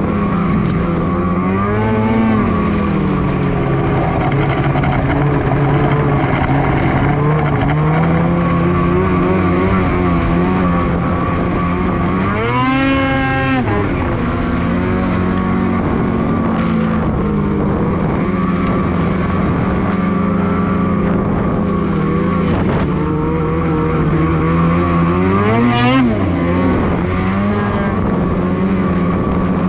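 Polaris Switchback Assault 850 snowmobile's two-stroke engine running under way, mostly at a steady pitch. It revs up and back down briefly about two seconds in, harder near the middle, and again near the end.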